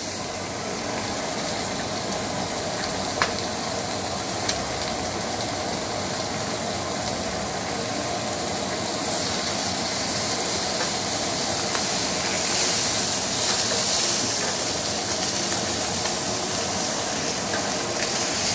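Pork slices sizzling steadily on a hot electric grill plate, with a few sharp clicks from the kitchen scissors and tongs working the meat.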